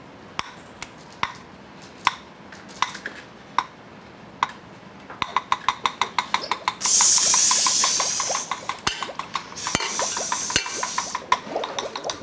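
Improvised percussion made from household objects: scattered taps and clicks, then from about five seconds in a quick run of clicks, about eight a second. Two loud bursts of hiss break in partway through.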